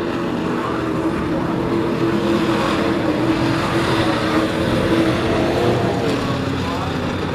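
Engines of a pack of sport-class race trucks running at racing speed on a short oval, getting louder in the middle as the field passes, with some engine pitch rising and falling.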